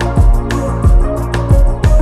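Background music with a steady drum beat, a deep kick about twice a second, over sustained chords.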